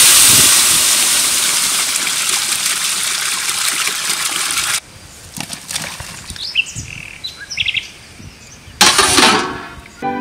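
Water pouring steadily, loud and hissing, cutting off suddenly about five seconds in. Birds chirp after that, and a second short rush of noise comes near the end.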